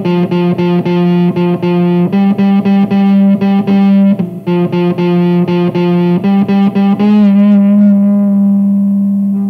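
Semi-hollow electric guitar playing a repeated picked riff, about four notes a second, with a brief break about four seconds in. About seven seconds in, a last note is let ring with a slight waver and starts to fade.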